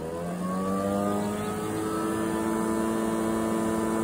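Kobalt 40V battery lawn mower's electric motor and blade running at full speed with a steady whine, its pitch rising over the first second as it comes up to speed.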